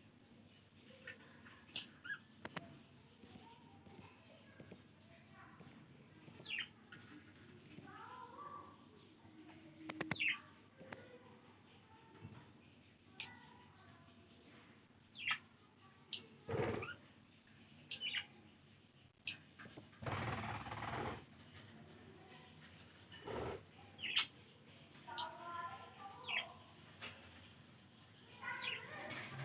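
Pet budgies chirping: a quick run of sharp, high chirps, about two a second, in the first third, then scattered chirps and warbling chatter. A short rustling burst about two-thirds of the way through.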